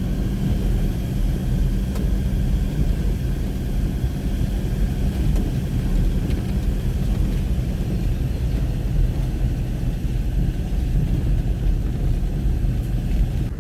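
A car running along a dirt road: a steady low engine drone under the rumble of tyres on the unpaved surface.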